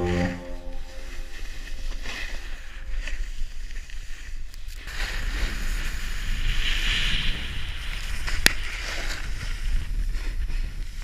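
Wind rushing over an action camera's microphone, with the hiss and scrape of skis sliding over snow during a downhill run. A single sharp click comes about eight and a half seconds in.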